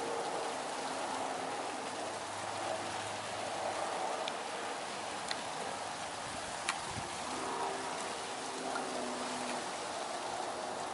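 Steady rain falling, an even patter throughout, with a few faint small ticks.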